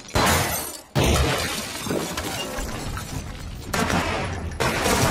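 Movie gunfight sound effects: loud bursts of gunfire with bullets smashing into plaster and stone walls, and debris shattering and scattering. One burst comes right at the start, then after a brief sudden drop to quiet a second starts about a second in, and a heavy burst comes near the end.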